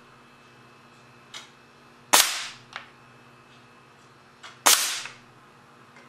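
Two sharp shots from a homemade solenoid-valve .177 BB air cannon firing steel BBs, about two and a half seconds apart, each with a short echoing tail. A faint click comes before each shot.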